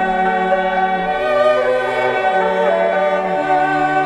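Background music of slow, sustained chords, the bass note changing about once a second.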